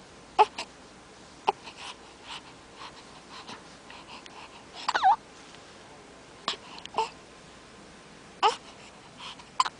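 A newborn baby hiccuping: about seven sharp little hiccups at uneven intervals, each with a short high squeak of the voice. About five seconds in, one hiccup runs into a longer squeaky whimper, with soft breaths between the hiccups.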